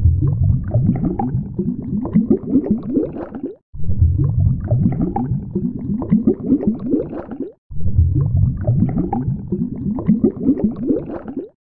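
Underwater bubbling and gurgling, a dense low rumble full of small pops and rising blips. The same stretch of about four seconds is heard three times over, with a brief cut between each.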